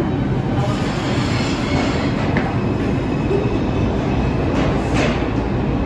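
R142/R142A subway train running along the track in the station, a steady loud rumble, with a brief sharp sound about two and a half seconds in and a stronger one about five seconds in.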